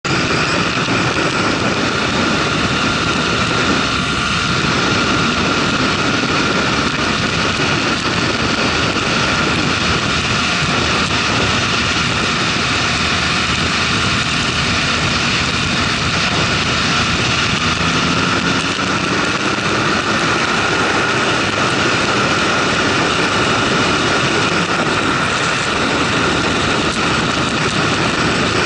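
Motorcycle riding at highway speed: steady wind rush on the microphone over the engine's drone, with the engine note rising a little past the middle as the bike speeds up.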